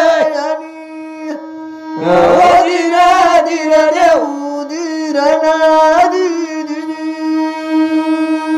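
Men singing a chanted folk-song narrative over a steady instrumental drone. The singing breaks off briefly near the start and comes back in at about two seconds, in wavering phrases, while the drone holds one pitch.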